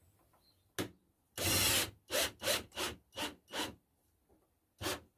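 A hand tool rasping against plastic pipe in short strokes: one longer stroke, then five quick ones at about three a second, with single strokes before and after.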